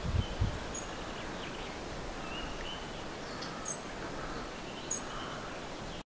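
Woodland birds singing and calling: scattered short high chirps, three of them sharper and louder, and brief whistled notes, over a steady rustling background. A few low rumbles near the start.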